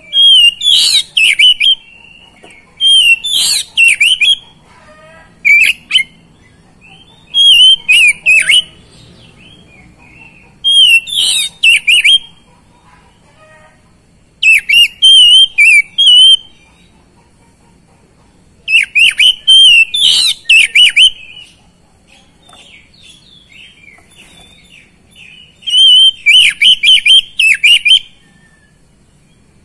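Oriental magpie-robin singing loud, varied phrases of quick whistles and chirps, each a second or two long, repeated every few seconds with short pauses between.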